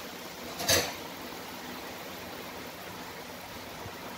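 A pan of urad dal simmering on the stove with a steady low hiss, coming up to the boil. One brief sharp noise under a second in.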